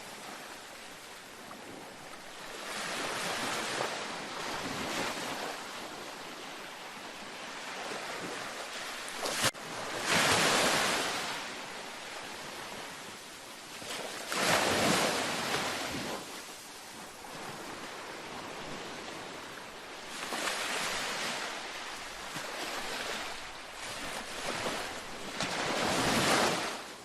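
Gentle ocean waves washing onto a beach, each swelling and falling away in a rush of surf about every five seconds over a steady hiss of water. A single sharp click is heard just before the wave about ten seconds in.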